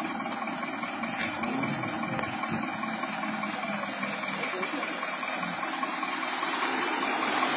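Bus engine idling steadily, with faint voices.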